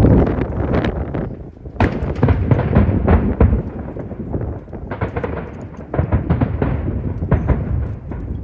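Aerial fireworks bursting in quick succession: a dense run of bangs and crackling shell breaks, with fresh volleys about two, three, five and six seconds in. A heavy low rumble of wind on the microphone runs under them.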